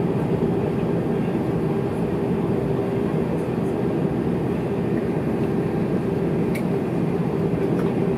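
Steady cabin noise of an airliner taxiing on the ground: a constant rumbling hum from the engines and airflow. Two faint clicks come near the end.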